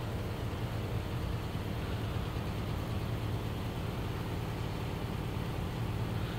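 Steady low electrical hum with a faint hiss above it, unchanging throughout.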